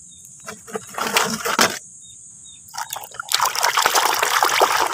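Water splashing and trickling as a muddy toy car is rinsed by hand: a short spell about a second in, then a longer one from a little past halfway.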